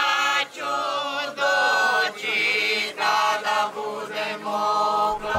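Women singing a traditional unaccompanied Croatian folk song from the Ravni Kotari region, which blends Lika and coastal melodies. The notes are long and held, in phrases of about a second with short breaks between them.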